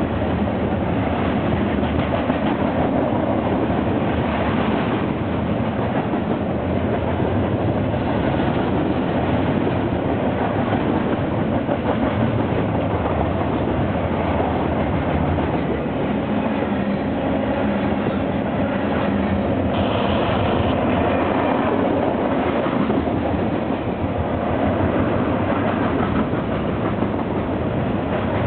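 Cars of a long mixed freight train rolling past, a steady rumble and rattle with wheels clicking over the rail joints.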